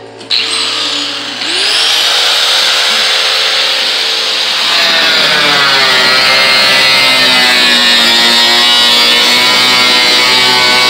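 Power-tool cutoff wheel starting with a sudden high whine that rises as it spins up, then cutting through the sheet-steel quarter panel of a car. It runs louder from about five seconds in, its pitch wavering as it bites into the metal.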